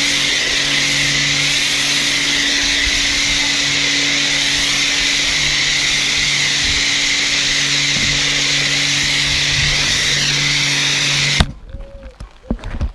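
Kärcher K4 pressure washer running and spraying through a snow foam lance: a loud, steady hiss of spray over the motor's hum. It stops suddenly near the end when the spray is shut off.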